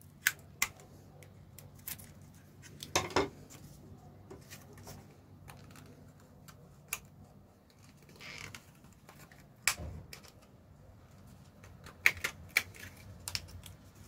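Scattered sharp plastic clicks and brief crinkles as the sealed plastic packaging of a new laptop RAM module is opened by hand, with a quick run of loud clicks near the end.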